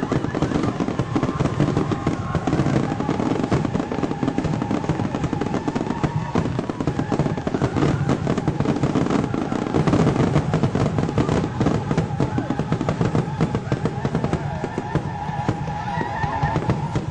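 Fireworks finale: a dense, unbroken barrage of shells bursting and crackling in rapid succession.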